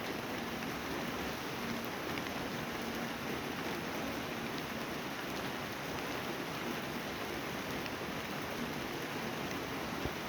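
Steady rain falling, an even hiss with a few faint drips.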